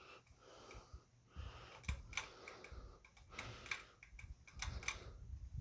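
SMC DC42 ceiling fan running on medium, with irregular clicking and ticking from inside the motor over a low hum. The owner suspects worn bearings.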